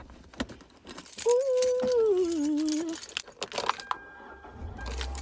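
Keys jangling and clothing rustling in a car's front seat, with many small clicks and knocks. A brief falling hum sounds in the middle. Near the end a thin steady chime tone comes in, along with a low rumble.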